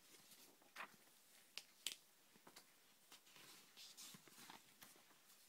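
Faint handling of glossy magazine pages and posters: soft paper rustling broken by a few short, sharp ticks, most of them in the first two seconds.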